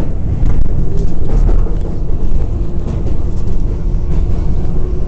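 An R188 subway train running, heard from inside the car: a loud, steady low rumble of wheels on rail, with faint clicks and a thin steady tone from about two and a half to four seconds in.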